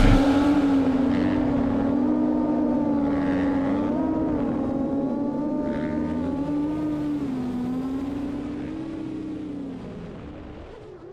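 A motor running with a pitched hum that slowly wavers up and down, fading out near the end.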